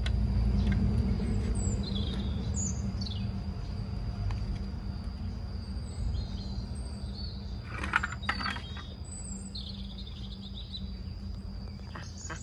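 Small birds chirping in short, scattered calls over a steady high-pitched insect drone and a low background rumble, with a few brief clicks about eight seconds in.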